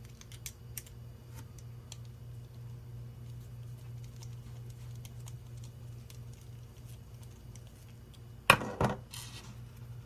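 Faint clicks and ticks of a screwdriver driving small screws into 3D-printed plastic parts, then a sharp double knock about eight and a half seconds in, followed by a brief soft rustle, over a low steady hum.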